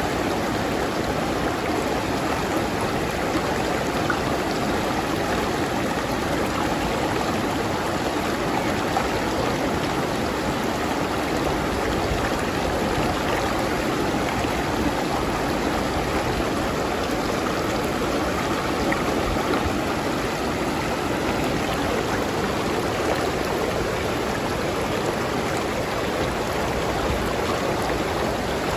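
A river stream flowing steadily over rocks, in a continuous rushing and gurgling wash of water.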